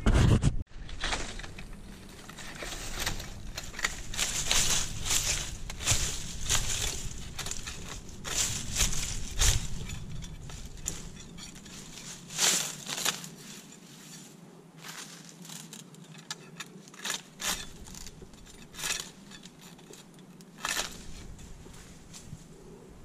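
Dry Canary Island date palm fronds crunching and crackling in irregular bursts, dense for about the first half and then as scattered sharp cracks.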